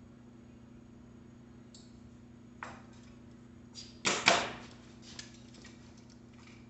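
Clicks and knocks from a mountain bike being handled in a work stand: a few light clicks, a louder clatter about four seconds in, then a few smaller clicks, over a steady low hum.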